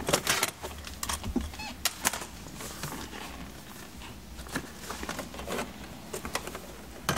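Hands working at a car's plastic lower dash trim panel to release it: a scattered run of small plastic clicks, taps and rattles.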